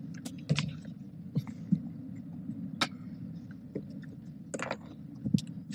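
A few scattered light clicks and taps, irregularly spaced, over a steady low hum.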